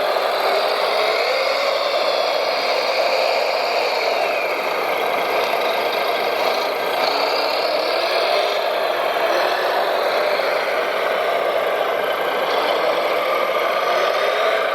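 Radio-controlled scale trucks and construction machines running: a steady mechanical whir and engine-like drone, with motor whines rising and falling in pitch every few seconds as they drive and work.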